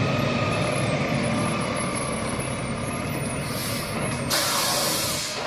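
Rear-loading diesel garbage truck running steadily, with a loud hiss of released air from its air brakes starting a little over four seconds in and lasting about a second.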